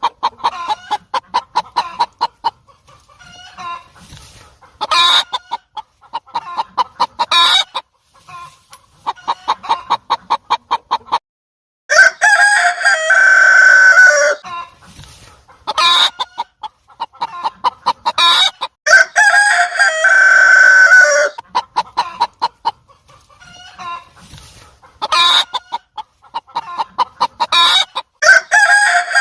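Domestic chickens: rapid runs of clucking, with a rooster crowing twice in long drawn-out calls about a third and two-thirds of the way through.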